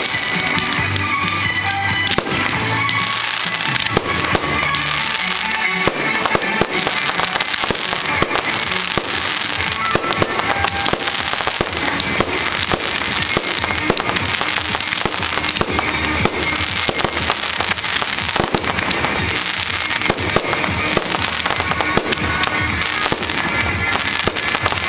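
Fireworks display going off in a dense, continuous run of rapid bangs and pops, with music playing underneath.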